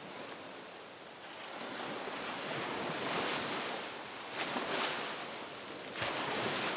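A soft rushing noise that swells and fades several times, with no voice or music.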